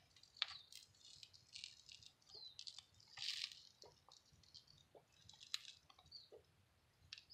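Near silence with faint handling noise: scattered light clicks and soft rustles as a phone is moved close through zucchini leaves.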